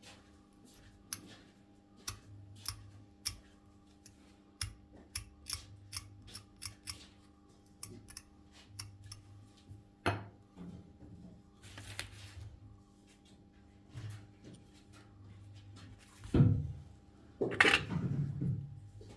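Sharp clicks and snips of small metal hand tools during bench work on a power adapter's circuit board, an irregular quick run for the first several seconds, then sparser, with a few louder knocks and handling noises near the end. A faint steady electrical hum lies underneath.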